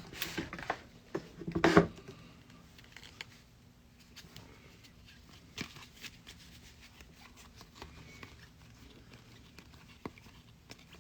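Trading cards being handled and flipped through: soft rustles and light taps, bunched in the first two seconds and loudest there, then only a few faint ticks.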